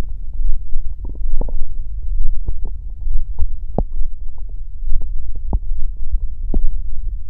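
Stomach growling and gurgling: a continuous low rumble broken by many short, irregular gurgles and pops.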